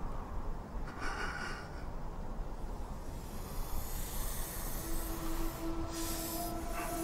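Film soundtrack: a low steady rumble with a short breathy hiss about a second in, then a sustained droning tone with several steady pitches coming in about five seconds in.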